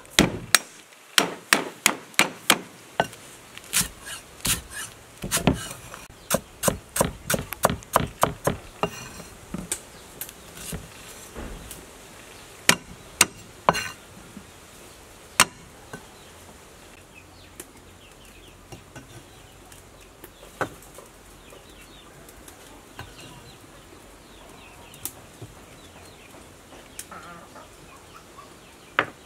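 Cleaver chopping lemongrass on a thick wooden chopping block: a quick run of sharp knocks, about two or three a second, for roughly the first fifteen seconds, then only an occasional single knock.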